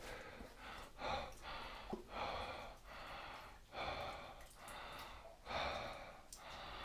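A man breathing audibly, a breath roughly every second, as he makes his way along on foot.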